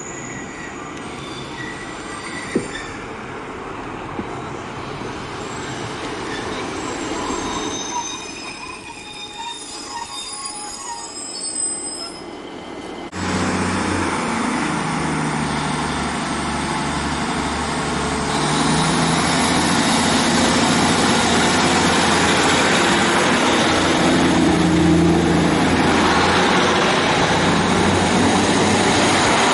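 A Class 150 Sprinter diesel multiple unit at a station platform, its wheels and brakes squealing in thin high tones as it comes in. About thirteen seconds in, its Cummins underfloor diesel engines jump suddenly louder with a steady low note. They climb again with a rising whine around eighteen seconds as the train moves off past.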